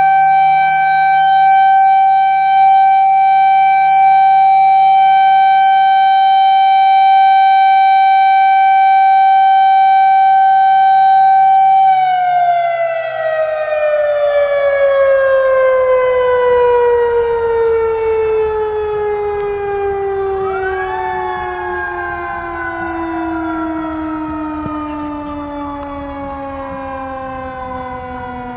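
Federal Signal Thunderbolt 1000 civil-defense siren sounding its steady single-tone alert, then winding down about 12 seconds in, its pitch falling slowly and steadily as the rotor coasts to a stop. A brief rising sweep cuts across the wind-down about two-thirds of the way through.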